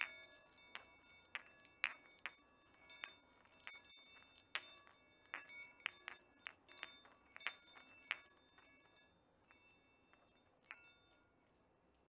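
Chinese Baoding meditation balls with chimes inside, moving against each other: irregular ringing metallic strikes, high and bell-like, coming often at first and thinning out to a single strike near the end.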